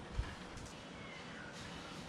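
A single dull thump shortly after the start, then faint, steady background hiss.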